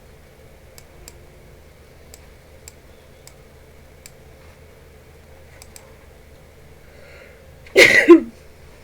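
A woman sneezes once, loudly, near the end, after a faint in-breath. Before that there is only a faint room hum with occasional soft clicks.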